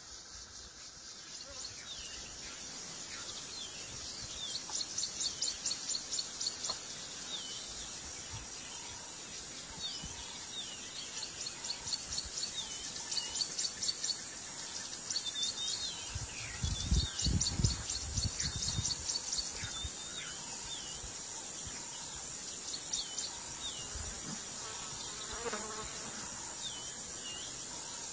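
Insects chirping in repeated trains of rapid high pulses, with short falling bird chirps scattered between them. A low rumble, the loudest thing heard, comes for about three seconds a little past the middle.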